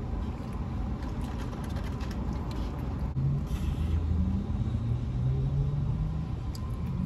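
Steady low rumble of a car idling, heard inside the cabin. There are faint sips through drinking straws and a low hum in the middle.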